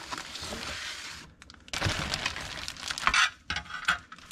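Clear plastic bag crinkling and white plastic model-kit parts trees rattling and clicking as they are handled and set down, with a short lull a little over a second in.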